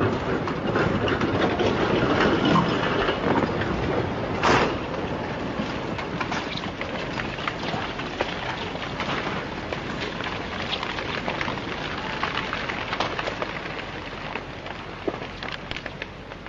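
Landslide: earth, rock and trees crashing down a hillside as a dense crackling rush full of snaps, with one sharp loud crack about four and a half seconds in. The rush slowly dies down near the end.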